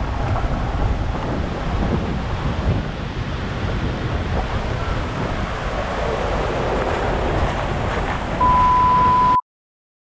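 Wind buffeting the microphone, a loud low rumbling roar. Near the end it gives way to a steady high beep lasting about a second, then the sound cuts off abruptly.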